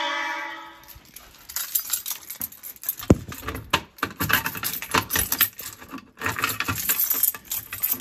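Keys jangling and clinking, with small clicks, as a Simplex fire alarm pull station is handled to be unlocked and reset. At the very start, the fire alarm signal that was sounding dies away within the first second.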